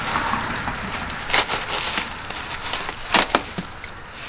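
Packing being worked loose and broken away from the shipping crate of a cast historic marker: a steady rustle with several sharp cracks, one about a second and a half in, one at two seconds and a close pair a little after three seconds.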